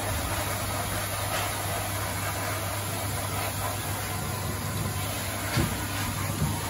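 K9000 dog-wash station's dryer blower running steadily through its hose, a constant rushing air noise over a low motor hum, blowing water off a wet dog's coat. A couple of brief knocks near the end.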